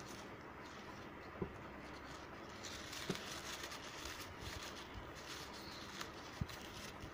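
Faint rustling of ribbon being bunched and shaped by fingers, louder from about halfway through, with four soft knocks scattered through it.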